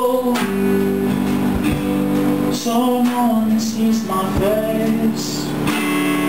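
A rock band playing between sung lines: guitars strumming, with a few drum hits.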